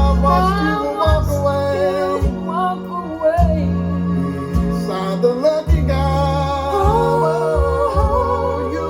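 Recorded slow ballad playing through Sonus Faber Olympica II loudspeakers on an EL34 valve amplifier: sustained bass notes changing about once a second under a wavering melody line, without sung words.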